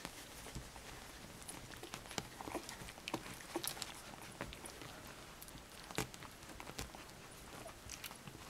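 Litter of young puppies nursing on their mother: soft, irregular clicking and smacking of suckling.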